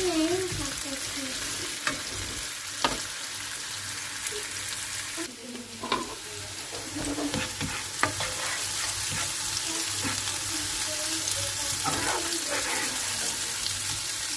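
Sliced green charleston peppers sizzling in melted fat in a frying pan as they soften, with a plastic spoon stirring them and now and then clicking and scraping against the pan.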